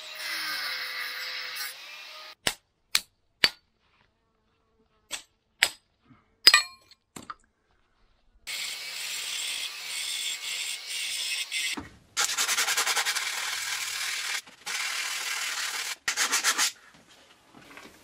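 Angle grinder cutting through a steel bar, trimming the excess top piece off a new bulldozer track pin, in several runs. Between runs come about seven sharp knocks, a few seconds apart.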